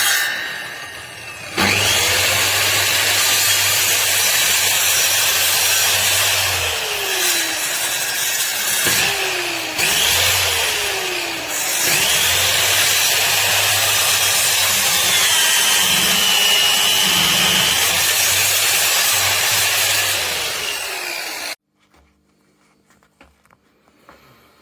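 Enventor 1200 W electric circular saw running and cutting wood: loud, steady cutting noise over several stretches with short breaks, ending abruptly near the end.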